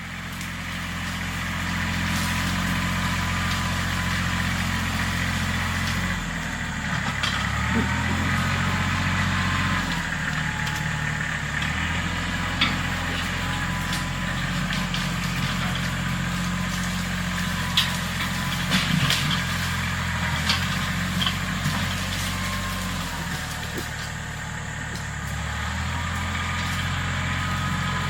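An engine running steadily, its pitch dipping and recovering several times as it works, with a few sharp cracks mixed in.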